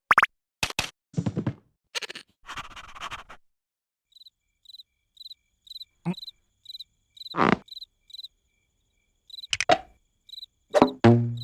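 Cartoon sound effects: a quick run of knocks and noisy hits, then a steady cricket-chirp effect, about two chirps a second, broken by a few short sudden noises.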